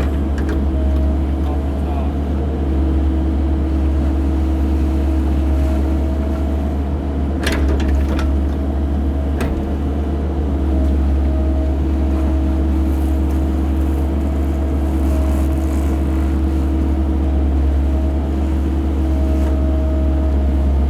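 Cat 308 mini excavator's diesel engine running steadily while the machine works, with two sharp knocks about seven and a half and nine and a half seconds in.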